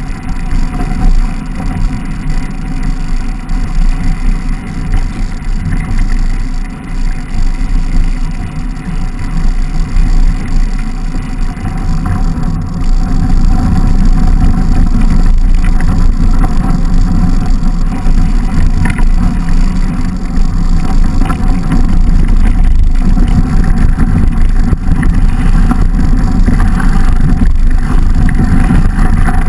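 Steady low rumble of wind buffeting and vibration picked up by a bike-mounted camera as a mountain bike rolls down a snow-covered trail, growing louder from about halfway through.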